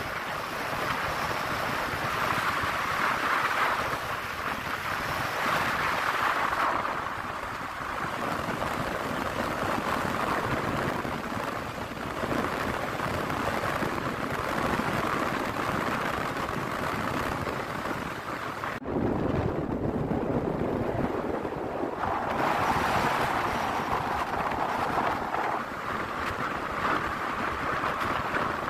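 Wind rushing over the microphone of a moving Royal Enfield Himalayan 411 motorcycle, with the bike's engine running underneath. About two-thirds of the way through, the hiss suddenly drops away for a few seconds, leaving a lower rumble, and then comes back.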